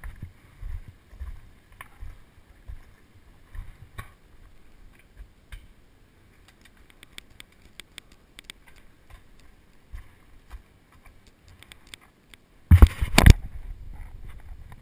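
Mountain bike rolling slowly over gravel, with low rumbling and scattered crunching clicks. Near the end, a short, loud knocking and rubbing close to the microphone.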